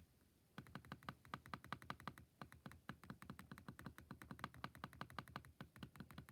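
Faint, rapid, irregular typing on a computer keyboard, with a brief pause between runs of keystrokes.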